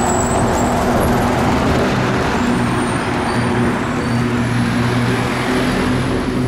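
Articulated city bus passing close by, its engine and tyres loudest just after the start, followed by a car passing, over steady street traffic.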